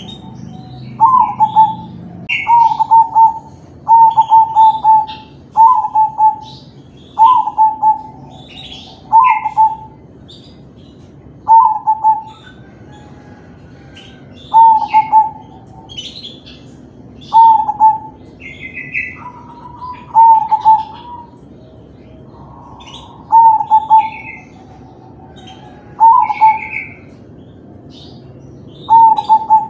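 Crossbred zebra dove (perkutut) singing its cooing song, a short loud phrase of coos repeated roughly every two seconds, with fainter, higher chirps between the phrases.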